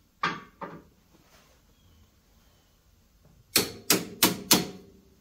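Sharp metal knocks: two near the start, then four quick ones about three a second near the end, each with a brief ring. They come as parts on the UTV's suspension are worked into line with a screwdriver.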